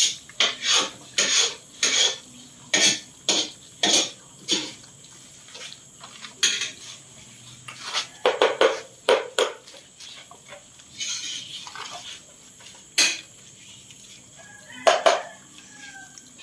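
Metal spoon knocking and scraping against plastic food bowls as dog food is scooped and dished out, in short sharp knocks about two a second at first, then in clusters of clatter.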